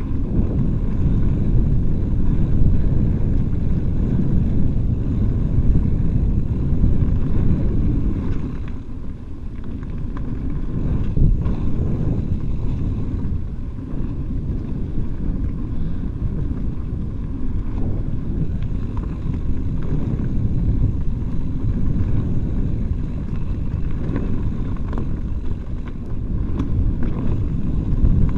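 Wind rushing over the microphone and the low rumble of mountain bike tyres rolling fast over a dirt singletrack, with a few faint knocks from bumps in the trail. It eases off briefly about nine seconds in.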